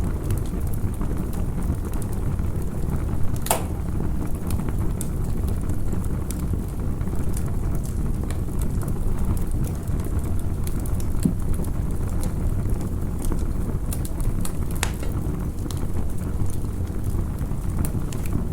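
Campfire crackling, with scattered sharp pops and one louder pop a few seconds in, over a steady low rumble.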